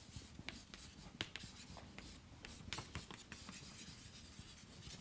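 Chalk writing on a chalkboard: faint, quick, irregular taps and scratches as a word is written out by hand.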